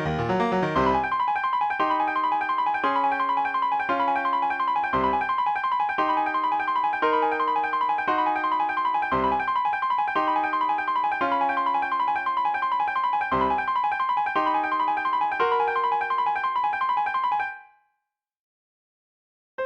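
Piano music: a quick repeating figure in the high notes over lower chords that change about every two seconds. It fades out shortly before the end, leaving silence.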